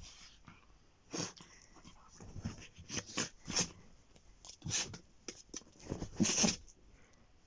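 Dachshund playing rough with a person's hand, making a string of short, irregular huffs and grunts, the loudest about six seconds in.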